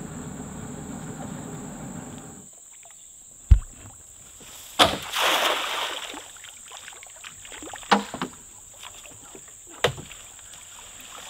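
A cast net thrown from a boat. A steady low rumble stops about two and a half seconds in, a sharp thump follows, then the weighted net lands on the river with a splash lasting about a second. A few sharp knocks come near the end as the net is hauled up against the boat's hull.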